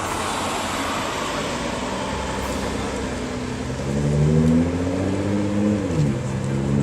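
A car engine running under power: a noisy rush at first, then an engine note that gets louder and climbs slowly in pitch, drops sharply near the end, and then holds steady.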